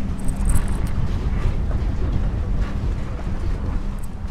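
Steady low mechanical hum from a moored superyacht's running machinery, with wind rumbling on the microphone.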